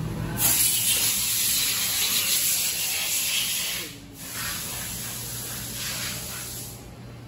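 Loud, steady hiss of pressurized air in an engine shop. It starts about half a second in, breaks off briefly around four seconds in, and stops shortly before the end.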